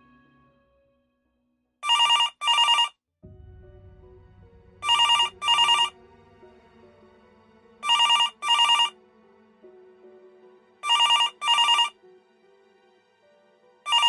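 Desk telephone ringing with a double ring, a pair of short bursts about every three seconds, over quiet background music.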